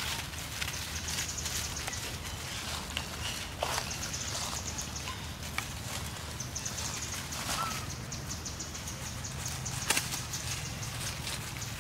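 Outdoor forest ambience: a high-pitched, fast pulsing trill comes and goes in bursts of a second or two, over a low steady rumble and scattered small crackles of dry leaf litter as macaques move about, with one sharp snap about ten seconds in.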